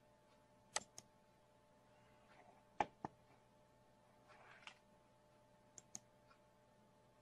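Near silence with a faint steady hum, broken by three pairs of short sharp computer mouse clicks, the middle pair loudest.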